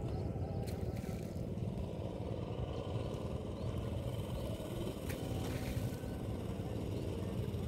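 Rice transplanter's small engine running steadily as the machine plants across a flooded paddy.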